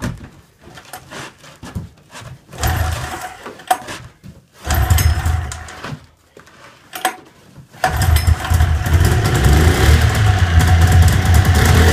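1994 Polaris Indy XLT 600 snowmobile's two-stroke triple being started for the first time after a carburettor cleaning and fresh gas. It fires and sputters briefly twice, then catches about eight seconds in and runs steadily.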